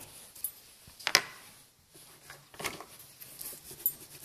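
A few short colouring strokes scratching on paper, with a sharp click about a second in.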